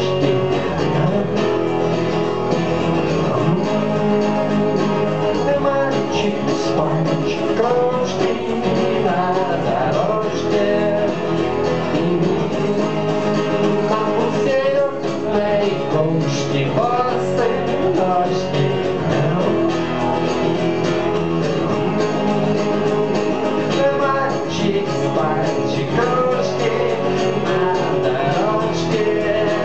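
A live acoustic song: steel-string acoustic guitar strummed steadily, with a hand shaker and tambourine keeping time and a man's voice singing.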